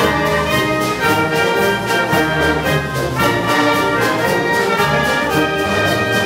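Wind band of clarinets, saxophones and brass playing together: full sustained chords over a steady beat.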